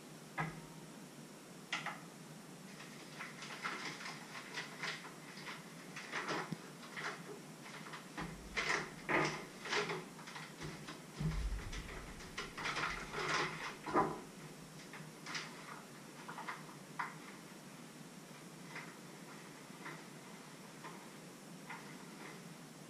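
Kitchen handling sounds: a busy run of clinks and knocks from a metal mixing bowl and utensils on a wooden worktop, with a few dull bumps in the middle, thinning out to scattered light clicks in the second half.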